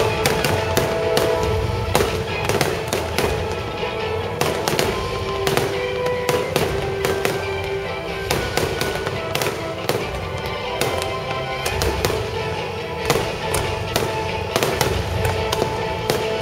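Aerial fireworks going off in a rapid, irregular run of bangs and crackles, with music playing along with the show.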